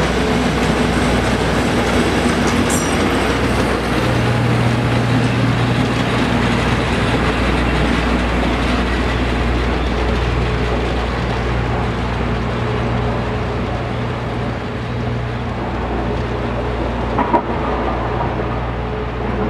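Yellow Network Rail Class 73 locomotive running through and pulling away, a steady engine drone with wheels on the track, easing off a little as it recedes. A single sharp click about seventeen seconds in.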